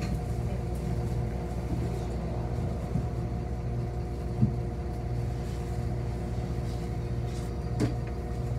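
City bus driving, heard from inside the passenger cabin: a steady low rumble of drive and road with a constant hum. There is one knock about four and a half seconds in and a sharp click near the end.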